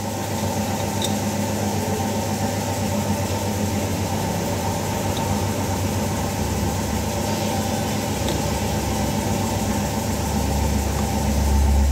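Steady mechanical hum of a running machine, with a few faint ticks; a low rumble swells near the end.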